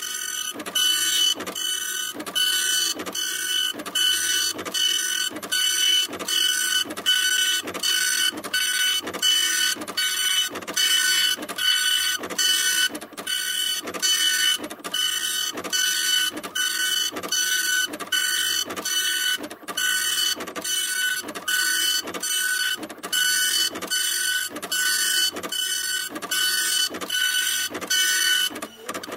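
Fax machine running its paper feed and print mechanism, a pulsing mechanical whine that repeats in a steady, even rhythm.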